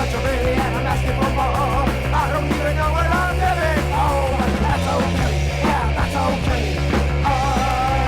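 1979 punk rock studio recording, a full band playing with a regular driving beat and a wavering melodic line over it.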